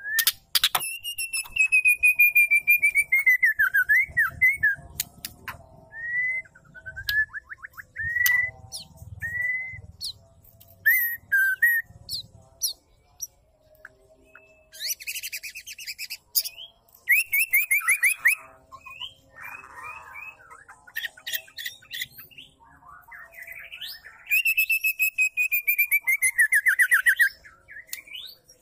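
Female white-rumped shama singing and calling. Long whistled phrases slide downward into fast trills near the start and again near the end, with short whistled notes and a few harsh chattering bursts in between.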